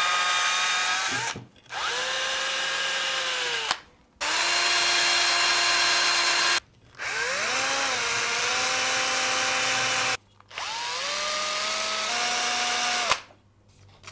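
Cordless drill running on the leg housing of a Volvo Penta saildrive in about five bursts of two to three seconds with short pauses between. Its motor whine glides up as a run starts and steps in pitch during the run, and a click sounds as some runs stop.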